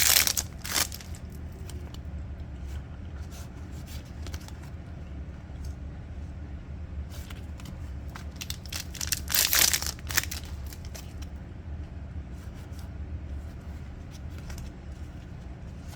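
Foil trading-card packs torn open, one right at the start and another about nine seconds in, with light crinkling and small ticks of cards being handled in between. A steady low hum runs underneath.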